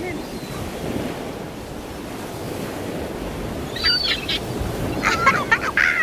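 Steady rush of wind, then from about four seconds in young gulls calling, growing louder and more crowded near the end as they squabble and flap over food.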